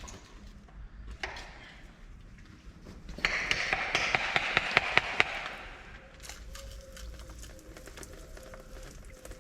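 Aerosol brake cleaner sprayed in one hissing blast of about two and a half seconds, starting about three seconds in, with sharp clicks during the spray. Light taps and clicks of tools on metal come before and after it.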